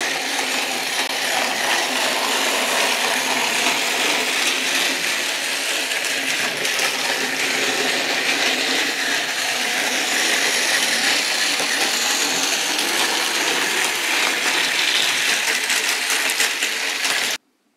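Battery-powered Plarail toy train running along plastic track: the small motor and wheels make a steady whirring rattle that cuts off abruptly near the end.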